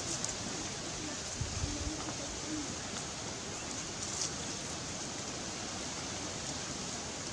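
Steady outdoor background hiss, like distant rushing water, with a few faint clicks and a soft low thump about one and a half seconds in.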